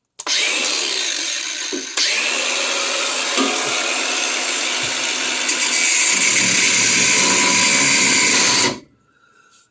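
Bauer cutoff-wheel grinder running and cutting into a steel exhaust clamp. It grows louder about two seconds in and stops abruptly near the end.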